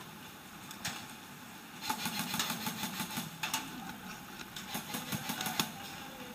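Airsoft guns firing in short rapid bursts, a fast mechanical clicking that comes in irregular runs for a few seconds, after a single click about a second in.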